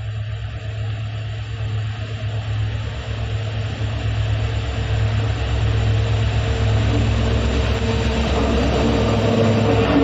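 Indian Railways diesel locomotives approaching with a steady low engine hum, growing steadily louder until they pass close by near the end.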